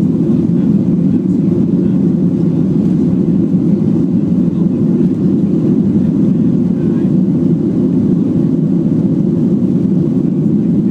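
Cabin noise inside a Boeing 737 airliner during its takeoff roll, the jet engines at takeoff power: a loud, steady, deep rumble that holds without a break.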